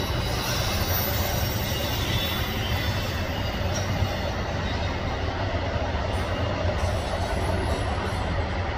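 Double-stack intermodal freight train rolling past: a steady rumble of well cars' wheels on the rails.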